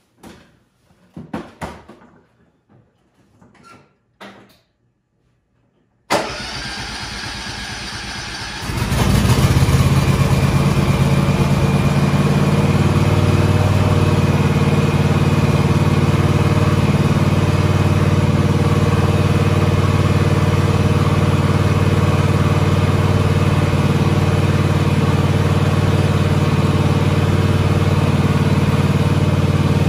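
John Deere X580 garden tractor's Kawasaki V-twin engine being started: the starter cranks for about two and a half seconds from around six seconds in, then the engine catches and runs steadily.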